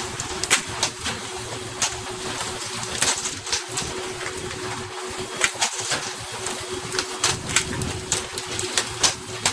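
Irregular sharp slaps and knocks, at times several a second, as pole-caught fish are swung aboard and smack onto a fishing boat's deck, over a steady engine hum and the rush of spray along the hull.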